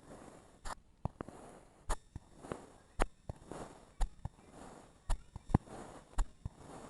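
Kinetic sand being cut and crumbled: a soft, gritty crunching, broken by sharp clicks about once a second.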